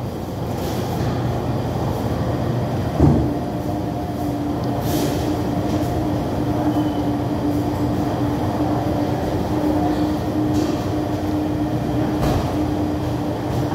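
Steady mechanical hum of air conditioning with a constant tone running through it, and a single sharp knock about three seconds in.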